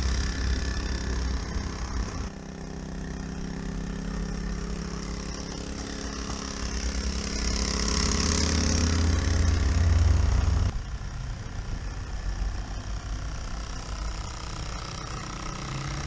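The sound unit of a battery-powered model diesel locomotive running, a steady diesel-engine chug over a low rumble. The sound changes abruptly twice, about two and about ten seconds in.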